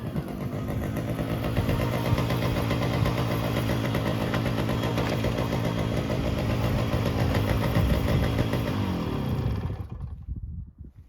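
1978 Tomos 14TLS moped's 49cc two-stroke single-cylinder engine running steadily, then dropping in pitch and stopping about ten seconds in.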